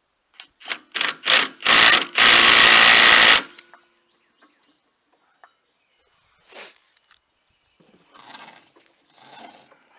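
Cordless impact gun running the nut onto a go-kart belt pulley: four quick trigger blips, a slightly longer burst, then one steady run of just over a second as it hammers the nut tight. A few faint short noises follow later.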